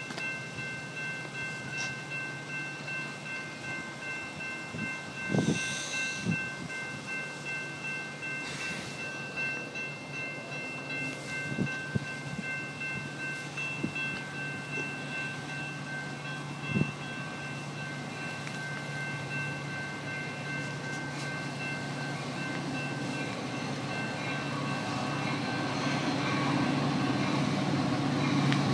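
Railroad grade-crossing warning bells ringing steadily in a fast even rhythm, while an approaching Metra commuter train's rumble builds louder over the last several seconds as it nears the station.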